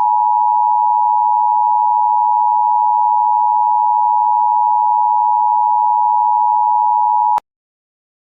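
Emergency Alert System attention signal: a loud, steady electronic tone that holds one pitch and cuts off abruptly near the end.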